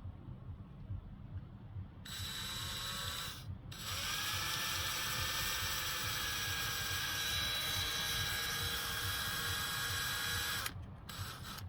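Small electric drill with a 2.5 mm bit drilling a hole through seatbelt webbing: a short run about two seconds in, a brief stop, then a steady whine for about seven seconds, and a short blip near the end.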